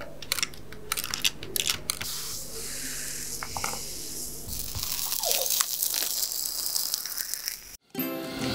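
Glowing-hot knife blade melting through plastic toys: crackling and ticking in the first two seconds, then a steady sizzling hiss with scattered clicks. Near the end, after a brief break, the hiss of gas torch flames heating the blade.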